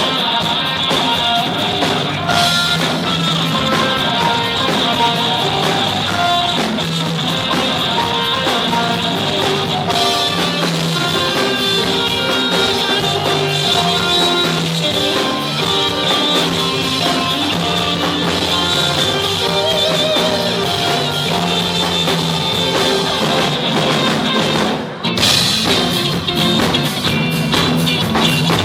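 Rock band playing, with guitar and drum kit; the music drops out for an instant about 25 seconds in and then comes back in.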